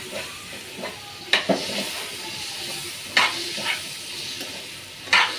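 Chicken pieces sizzling as they fry in a little oil in a steel pan, stirred with a metal spoon that clacks sharply against the pan about five times.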